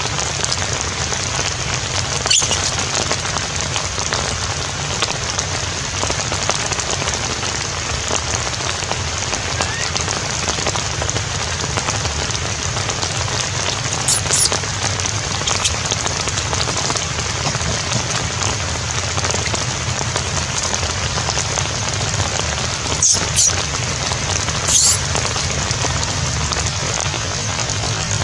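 Steady rain falling, an even hiss with no pauses, broken by a few brief sharp high sounds near the start, in the middle and near the end.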